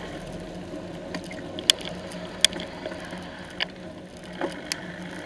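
Steady road noise from a bicycle riding on a wet road past slow traffic, with a steady low hum. A handful of sharp, irregular clicks cut through it.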